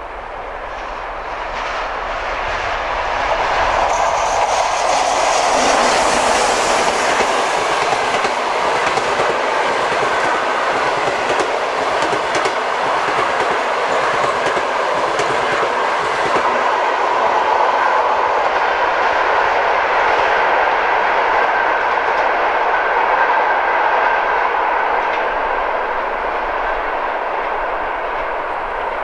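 TEP70 passenger diesel locomotive with its 16-cylinder diesel engine passing at speed, growing louder over the first few seconds and loudest as it goes by. The passenger coaches then roll past with a steady clickety-clack of wheels over rail joints, easing off near the end.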